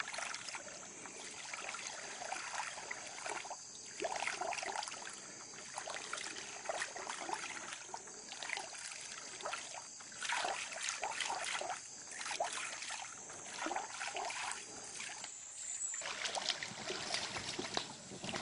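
Water trickling and lapping around a small boat on a slow creek, with irregular little splashes and drips.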